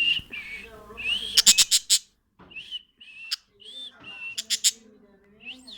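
A bird whistling short notes that rise and fall, broken twice by quick runs of sharp clicks, about a second and a half in and again just past the middle.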